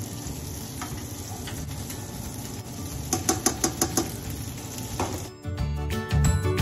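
Rice sizzling in a stainless steel sauté pan while it is stirred with a black plastic serving spoon, then about six quick taps of the spoon against the pan a little after halfway through.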